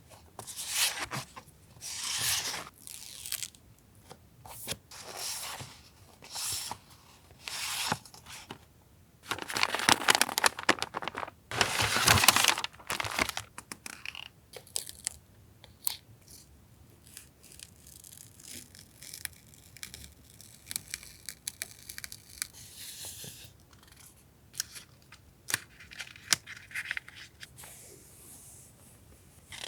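Paper and plastic packaging being torn open and rustled by hand, in a run of short crinkling, tearing strokes with the loudest tearing between about nine and thirteen seconds in, then quieter crinkling.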